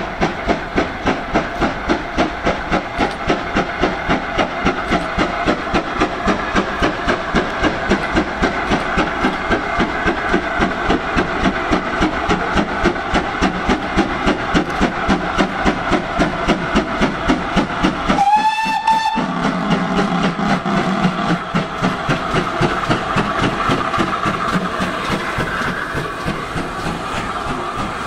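GWR 42xx 2-8-0T steam tank engine No 4247 hauling a goods train, its exhaust beating evenly at about three beats a second. A short steam whistle blast sounds about two-thirds of the way in. Near the end the wagons roll past with a clatter of wheels on rail joints.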